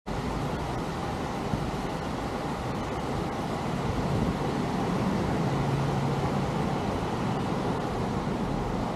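Steady low rumble of distant road traffic, with a brief low engine hum a little past the middle.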